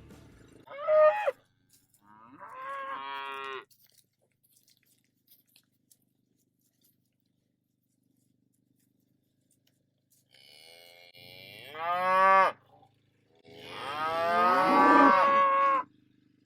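Cattle mooing: two shorter calls in the first few seconds, then two longer, louder moos near the end, the last one the longest.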